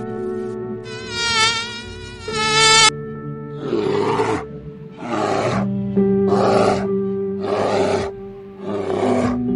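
A wavering, buzzing whine for the first three seconds. Then brown bears growl in short bursts, about one a second, as they wrestle. Under it runs background music with long held notes.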